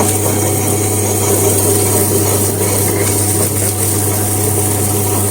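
Electric wet grinder running steadily, a low motor hum under an even grinding noise. It stops abruptly at the end.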